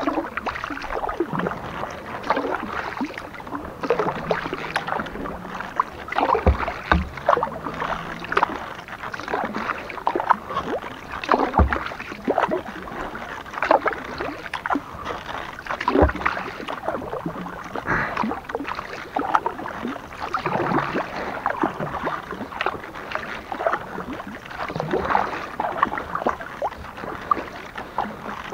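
Kayak paddling: the paddle blades dip and splash in calm water, with dripping between strokes, in an uneven rhythm of a stroke every second or two. A few dull knocks sound along the way.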